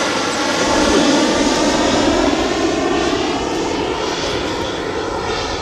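Radio-controlled model plane's motor and propeller droning in flight with a steady pitch, slowly fading as the plane moves away.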